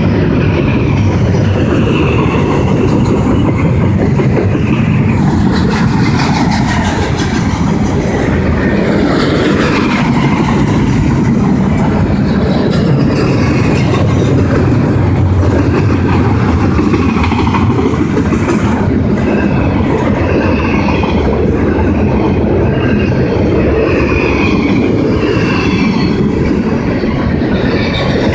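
Intermodal freight cars rolling past close by: a loud, steady rumble of steel wheels on rail, with a wavering high squeal from the wheels coming and going.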